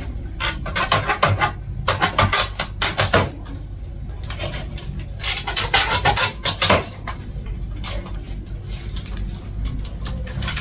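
Handling noises: several short bursts of knocking, clattering and rustling, with a steady low hum underneath.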